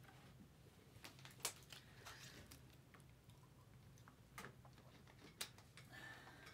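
Faint handling noise: a few short clicks and taps with soft rustling, over a low steady hum.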